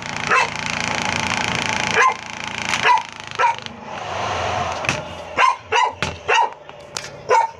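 A dog barking over and over in short, sharp barks, coming quickest in the last three seconds. Twice a steady rushing noise runs underneath for a second or two.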